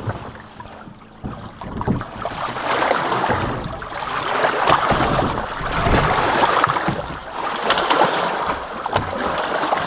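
Shallow water splashing and sloshing against rocks and a plastic kayak's hull as a person climbs out of the kayak and steps into the water, in swells every second or two with scattered knocks.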